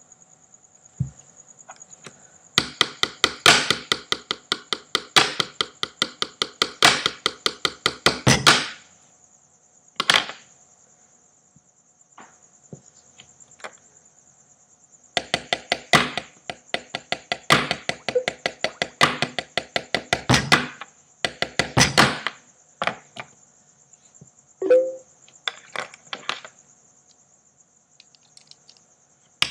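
Pen tapping: pens drummed on a hard surface in fast rhythmic runs of sharp taps, with pauses and a few scattered taps between the runs.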